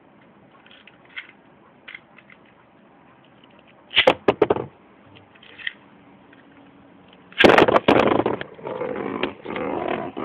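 A few sharp clicks about four seconds in. About seven seconds in, two Beyblade spinning tops, Twisted Tempo and Grand Cetus, are launched into a plastic stadium with a loud clatter. A steady rattling grind follows as they spin and knock against each other.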